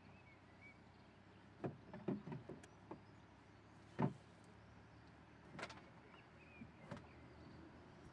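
Canoe paddle knocking against the hull with small splashes: a quick run of knocks about a second and a half in, the loudest single knock about four seconds in, then a few fainter ones.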